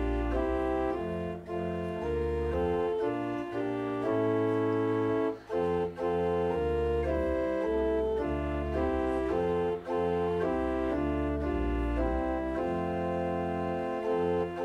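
Church organ playing held chords over a low bass line, with brief breaks between phrases.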